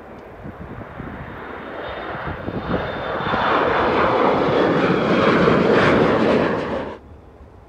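Embraer E-Jet regional jet's two turbofan engines at takeoff power as it lifts off and climbs out. The noise builds over a few seconds to a loud peak with a faint high whine on top, then cuts off abruptly near the end.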